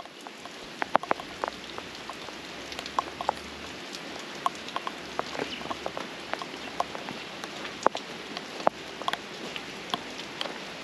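Rain falling steadily, a soft even hiss with irregular sharp taps of single raindrops striking close by.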